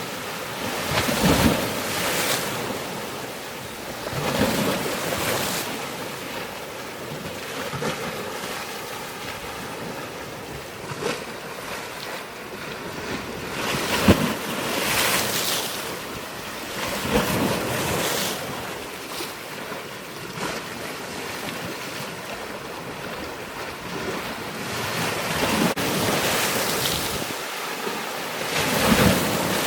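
Waves washing in surges every few seconds, with wind on the microphone.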